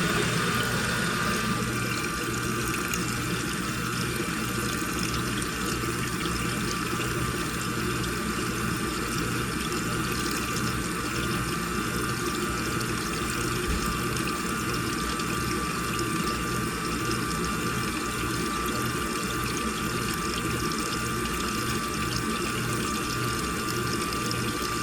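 Washing machine running with water rushing in, a steady wash of water noise with a steady high tone and a low, evenly pulsing hum underneath.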